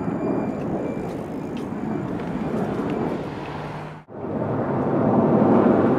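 Jet engine noise from a formation of fighter jets flying a smoke-trailing display, a steady roar that drops out briefly about four seconds in and comes back louder.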